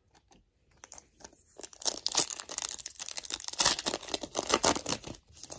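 Wrapper of a 2019 Panini Prizm Draft Picks trading card pack being torn open by hand: a dense run of crinkling and tearing crackles that starts about two seconds in.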